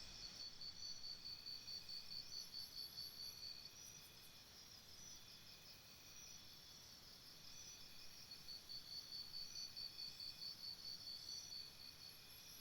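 Insects chirping: a high pulsing trill at about five pulses a second comes in two spells of roughly three seconds each, over a steady chorus of fainter high trills.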